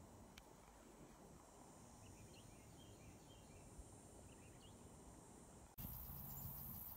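Faint outdoor ambience: insects trilling steadily, with a few faint chirps scattered through the middle. About six seconds in the sound steps up suddenly to a louder hiss with fast insect ticking.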